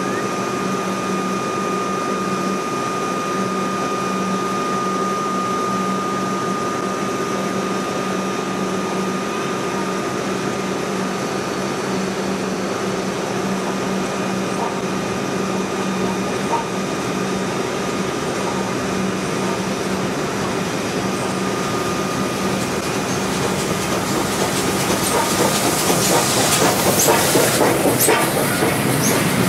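Steady electric hum of a stationary Metro suburban train. From about 24 seconds in, the A2 class 4-6-0 steam locomotive and its train roll in alongside the platform, growing louder with wheel clatter and clicks over the rails.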